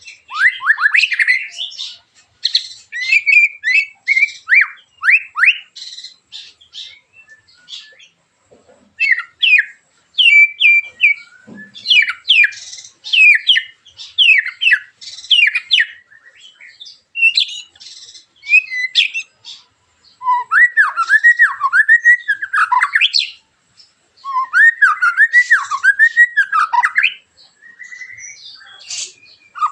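White-rumped shama (murai batu) singing loud, rapid bursts of sharp, harsh sweeping notes, the 'tembakan' phrases, with short pauses between bursts. In the later part come two runs of quickly repeated falling notes.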